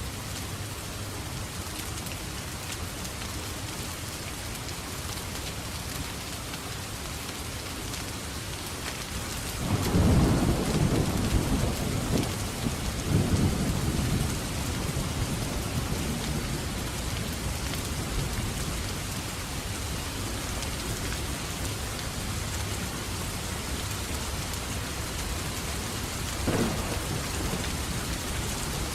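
Steady heavy rain falling, with a rumble of thunder about ten seconds in that swells twice over several seconds, and a short, sharper crack near the end.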